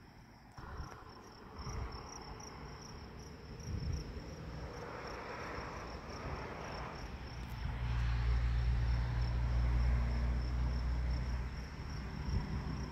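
Insects chirping: a high, even chirp repeating several times a second. Under it a low, steady diesel engine hum rises about two-thirds of the way in and is loudest for a few seconds before easing off, the train's locomotive engine heard from afar.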